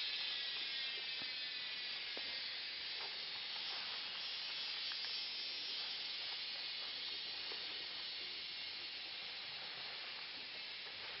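Tropical forest insect chorus: a steady, high-pitched hiss that slowly fades.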